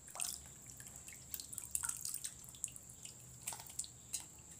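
Water splashing and dripping as hands wash pieces of turtle meat in a steel pot of hot water: irregular small splashes and plinks of falling drops.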